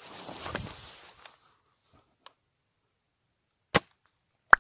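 Brief rustling of movement, then quiet broken by a faint click and two sharp, loud cracks near the end, about 0.8 s apart, plausibly airsoft guns firing; the last crack carries a short ringing tone.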